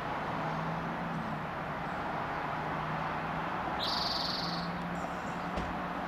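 Steady distant traffic noise with a low hum underneath, and one short, buzzy trill from a songbird about four seconds in.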